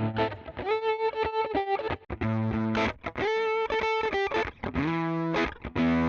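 Overdriven electric guitar played through a TONEX MAX amp-modelling pedal's drive preset: a riff of held, sustaining higher notes alternating with low chugged chords, in short phrases with brief breaks between them.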